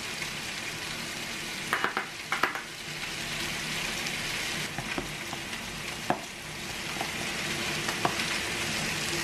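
Metal spoon scraping and clinking against a small stainless steel cup and plastic tubs as soybean paste and ssamjang are scooped out. There is a cluster of clinks about two seconds in, then single ones spaced a second or two apart, over a steady hiss.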